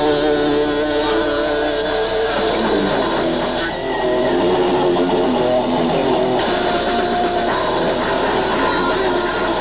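Live death metal band playing: distorted electric guitars over bass and drums, with a change of riff about four seconds in.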